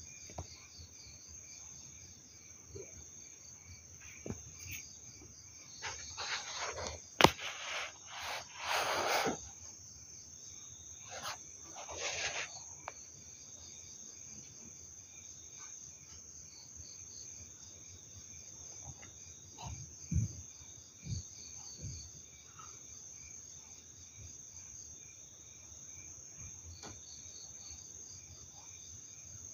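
Crickets chirping steadily in a fast, even pulse. Several short noisy bursts and one sharp click come between about six and twelve seconds in.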